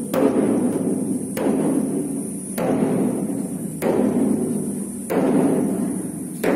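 A drum struck at a slow, even beat, about once every second and a quarter, each stroke ringing on until the next.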